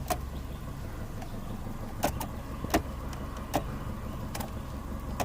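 A 2004 Subaru Outback's turn signal flasher clicking while the new turn signal switch is tested, a sharp tick a little faster than once a second, over a low steady hum in the car.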